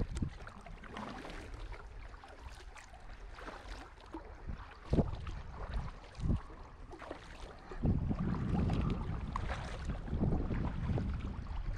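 Kayak paddle strokes splashing and dripping in the river water, with two short low thumps midway and a louder low rumble from about eight seconds in.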